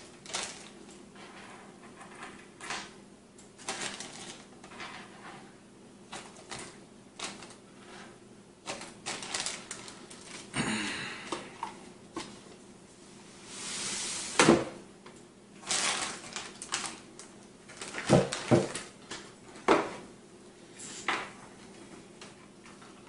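Hands moving monitor-arm parts and a cardboard box about on a wooden tabletop: scattered knocks and clicks, with a couple of longer, noisier handling sounds about ten and fourteen seconds in.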